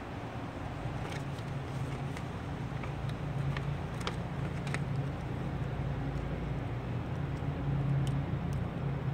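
A steady low hum, with a few light clicks and crinkles of a vinyl wheel skin's backing paper being handled and peeled.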